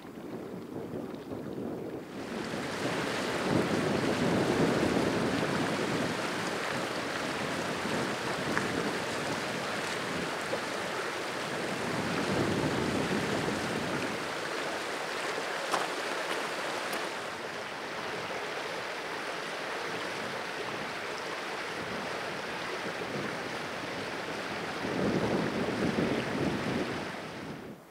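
Wind gusting, a loud rushing noise that swells and eases several times. It comes in suddenly about two seconds in and cuts off suddenly near the end.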